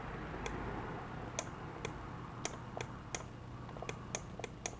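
Faint, irregular clicking at a computer, about a dozen sharp clicks over a few seconds, over a low steady hum.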